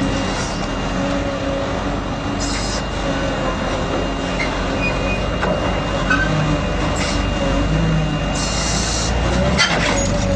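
Diesel engine of heavy construction equipment running steadily under a dense mechanical rumble, with two short hisses and a sharp click near the end.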